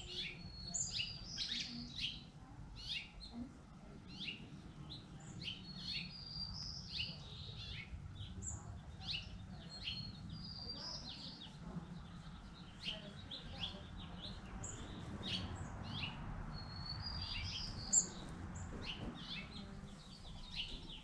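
Several songbirds chirping and calling, many short high chirps and whistles overlapping throughout.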